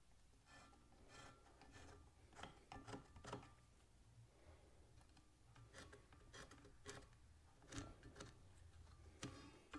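Faint, scattered scratching and rubbing as a paint marker is drawn across a rusty steel driveshaft tube, with a speed square held against it as a straightedge.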